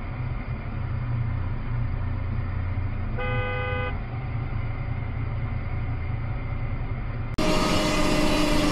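Steady low rumble of a car idling at a standstill, heard from inside the cabin, with one short car horn toot about three seconds in. Near the end it switches suddenly to louder steady road noise of a vehicle driving at speed.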